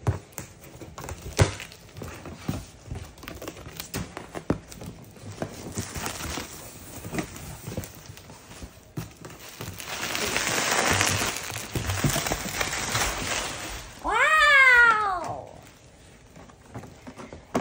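Cardboard box being opened and its bubble-wrap packing handled: scattered crackles and clicks, then a few seconds of dense plastic rustling. About fourteen seconds in, one high voice-like call rises and then falls.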